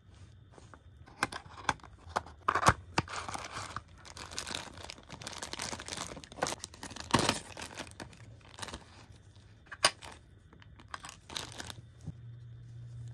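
Close-up handling of a small cardboard figure box and a clear plastic bag: sharp clicks and taps, then several seconds of plastic crinkling as the bag is opened, followed by scattered clicks as the small plastic figure and its base are handled.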